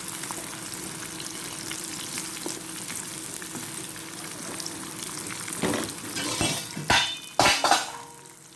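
Food frying in hot oil in a pot, a steady sizzle. About six to eight seconds in, a few loud knocks and clatters break through.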